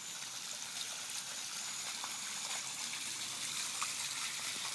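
Water rushing and splashing steadily as it flows out across a flooded yard.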